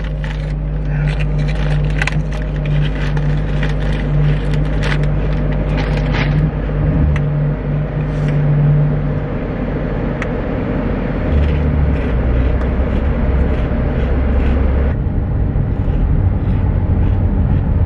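Car engine and road noise heard from inside the cabin as a steady low hum, shifting lower about eleven seconds in. Over the first several seconds come sharp crinkles and crunches from a bag of potato chips being opened and eaten.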